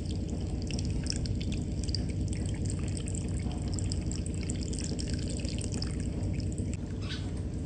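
Water running steadily, with scattered small drips and ticks.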